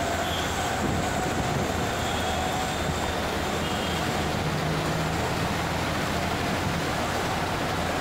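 Steady rush of floodwater flowing across a flooded road, with vehicle engines running in the traffic wading through it.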